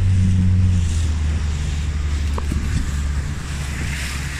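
Outboard motor of an inflatable boat running at low speed with a steady low hum, which drops a little in pitch about a second in and then grows slightly quieter, under wind and water noise.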